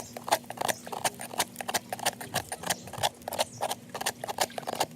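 A hand tool chipping and scraping dried cement off the side of a sneaker: rapid, irregular sharp clicks and taps, several a second.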